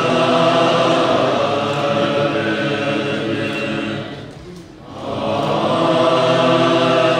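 Tibetan Buddhist monks chanting together in low, sustained unison tones. The chant drops away briefly about four seconds in, then resumes.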